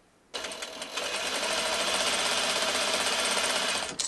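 Juki straight-stitch sewing machine stitching a seam through cotton patchwork pieces. It starts about a third of a second in, runs slower for a moment, then at a steady fast speed for about three seconds, and stops just before the end.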